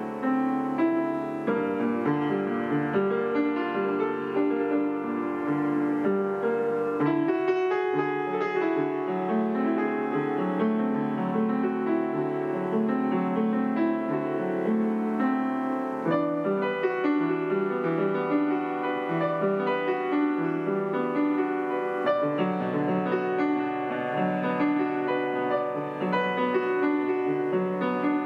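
Upright piano played solo: a continuous flow of overlapping notes and chords.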